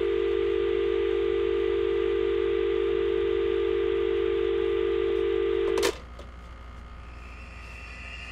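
A landline telephone dial tone, a steady low two-note hum, heard after the call goes dead mid-conversation. It cuts off with a click about six seconds in, leaving a faint hiss and a thin high tone fading in near the end.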